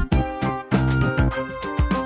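Background music with a strong, steady beat and sustained pitched notes.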